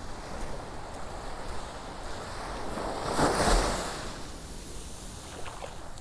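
Small ocean waves breaking and washing up the beach, swelling to one louder wash about three seconds in, with some wind on the microphone.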